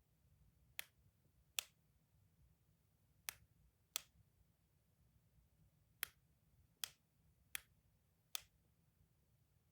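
Eight sharp single clicks from a clicky toy, coming in loose pairs less than a second apart with short pauses between the pairs.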